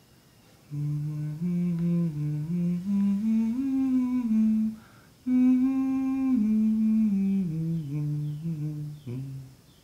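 A voice humming a slow tune in two phrases with a short break about halfway: the first climbs step by step, the second steps back down to a low note.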